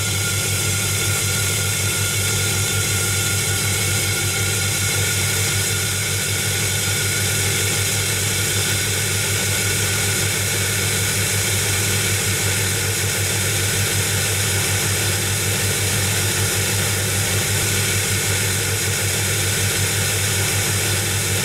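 Steady, loud drone of a vacuum excavator's engine and vacuum running, powering a hydraulic mini core drill as its diamond core bit cuts into asphalt, with a constant rush of air through the suction hose.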